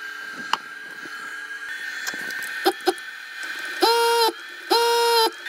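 Desoldering tool's vacuum pump running in two short bursts of about half a second each while U1, the CIA chip, is desoldered from the Commodore 64C board. A steady high whine runs underneath.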